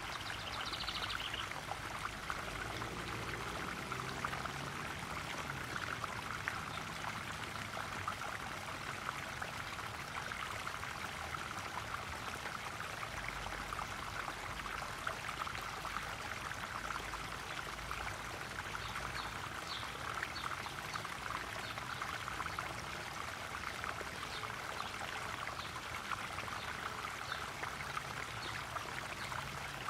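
Garden pond waterfall pouring and splashing steadily into a koi pond.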